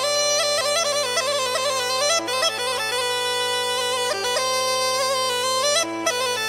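Background music: a bagpipe playing a quick, ornamented melody over a steady drone.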